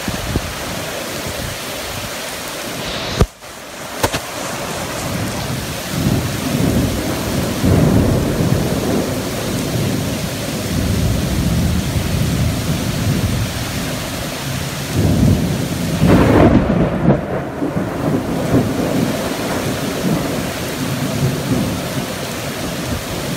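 Heavy rain pouring steadily, with thunder rumbling low beneath it and swelling twice, about six seconds in and again about fifteen seconds in. A brief sharp crack comes about three seconds in.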